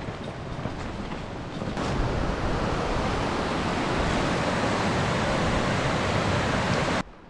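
Rushing water of a mountain torrent running over rocks. A steady, even rush comes in suddenly about two seconds in and cuts off abruptly near the end. Before it there is a quieter outdoor noise.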